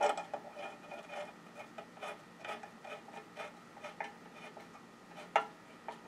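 Screwdriver turning screws into a bench grinder's cast iron wheel guard. Metal clicks as the tool engages, then light irregular clicks and scraping with each turn, and a sharper knock about five seconds in.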